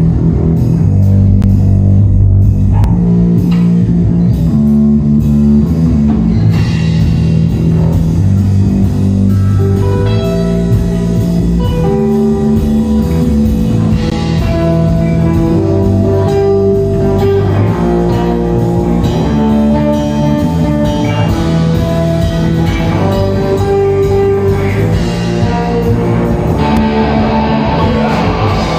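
Live rock band playing an instrumental passage: electric guitars and bass over a drum kit, with no singing.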